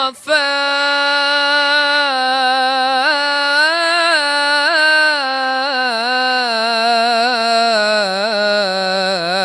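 A man's solo voice singing an unaccompanied Islamic ibtihal, holding one long melismatic note with small wavering ornaments. The pitch dips lower near the end.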